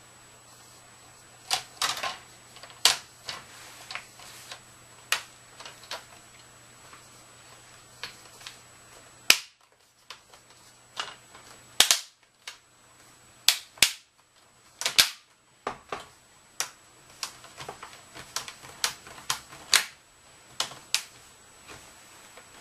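Irregular sharp plastic clicks and snaps of a laptop screen assembly being put back together by hand, some loud and some faint, in clusters.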